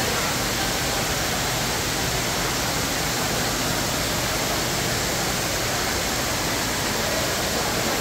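Steady rush of running water from a fountain or water feature, an even hiss with no breaks.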